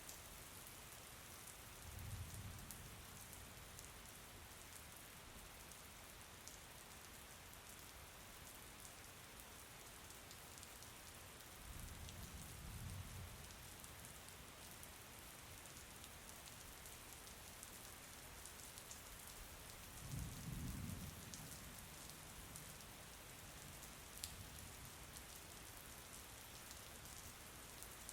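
Steady rain falling, a soft even hiss with fine drop ticks, broken three times by brief low rumbles.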